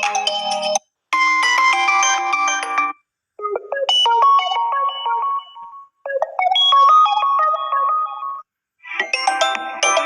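Phone ringtone previews playing one after another: a string of different short electronic tunes, each cut off abruptly after two to three seconds with a brief silence before the next starts.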